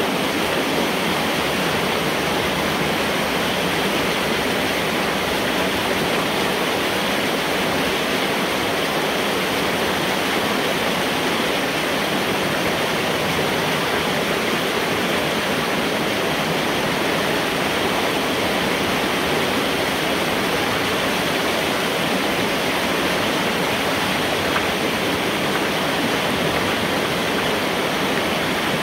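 Water rushing and churning steadily through a large metal culvert pipe, pouring past the broken-up beaver dam, heard from inside the pipe.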